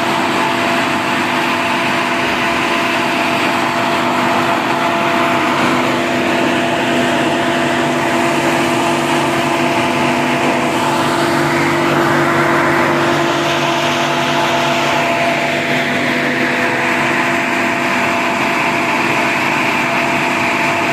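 Towable portable air compressor running steadily: an even engine drone with a constant hum and a rushing hiss.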